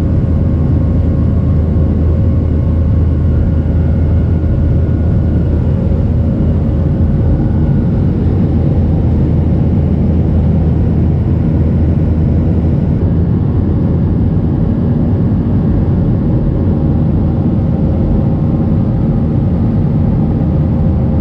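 Steady in-flight cabin noise of a Boeing 737-800: a low, even roar of its CFM56-7B engines and the air rushing past the fuselage, with a faint steady hum over it. The sound turns slightly duller about two-thirds of the way through.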